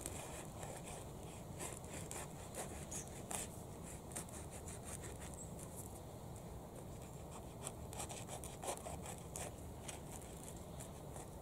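A knife sawing through the crust of a freshly baked bread roll: faint, irregular scratchy rasps of the blade against the crust.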